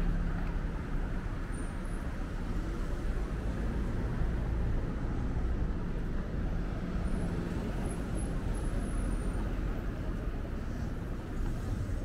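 City street traffic: cars and other vehicles driving past, a steady wash of engine and tyre noise.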